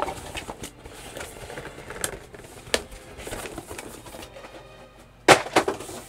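Cardboard packaging and a paper manual being handled and set down on a desk: light rustling with occasional taps. Near the end comes a louder cluster of knocks as the box is moved.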